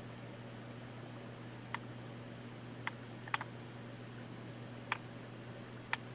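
About five scattered, sharp clicks from a computer mouse and keyboard being worked, over a steady low hum.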